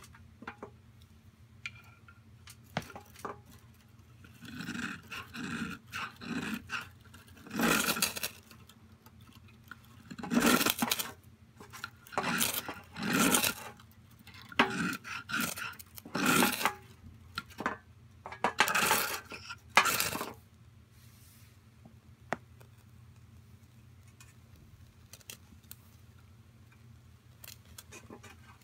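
Ferrocerium rod struck again and again to throw sparks onto a feather stick: about fifteen short scraping strokes in quick runs, ending once the curls catch fire. A few faint clicks follow.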